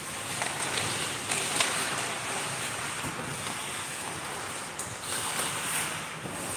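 Ice hockey in play on a rink: a steady rush of skates on the ice and arena noise, with a few sharp clacks of sticks and puck.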